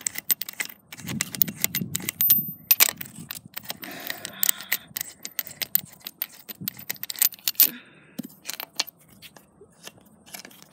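Socket wrench and extension clicking and clinking against metal as spark plugs are unscrewed from a Buick V6 cylinder head: a run of irregular sharp metallic clicks with some handling rustle in the first few seconds.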